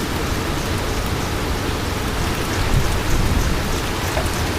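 Heavy rain pouring steadily in a severe thunderstorm, with a low rumble underneath and scattered small ticks of drops striking.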